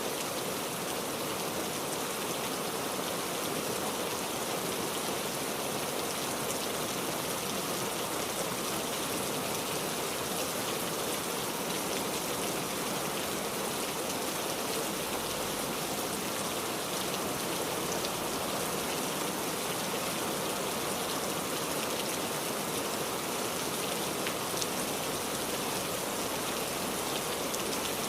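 Steady rainfall, an even hiss of rain with scattered individual drops ticking on a surface.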